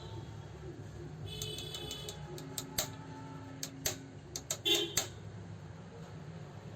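Metal clicks and taps from parts and tools being handled on an old overlock sewing machine: a quick run of light ticks, then several louder irregular clicks, over a steady low hum.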